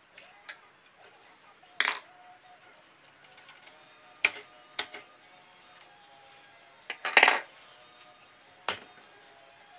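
Metal pick and circlip clicking against the Kawasaki Vulcan 900's fork tube and top cap as the circlip is pried out: several sharp metallic clicks at irregular intervals, the loudest a little after seven seconds in.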